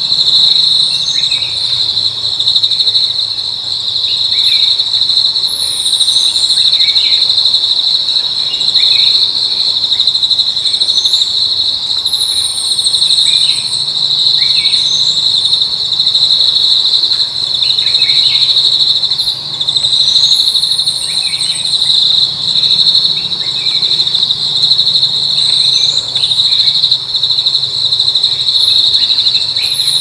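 Insects droning in a loud, steady, high-pitched chorus, with a very high thin call sliding down in pitch about every seven to eight seconds and scattered short chirps.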